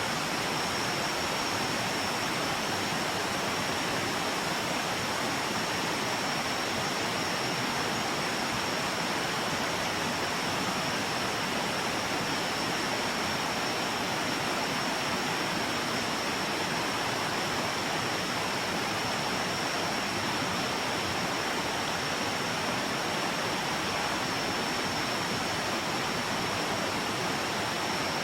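Jungle river water rushing steadily, with a thin high-pitched whine held at one pitch above it.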